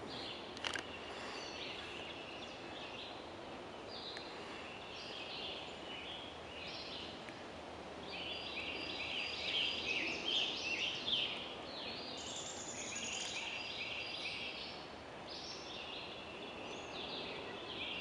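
A background chorus of small birds chirping and trilling, busiest from about eight seconds in. There is a single sharp knock just under a second in.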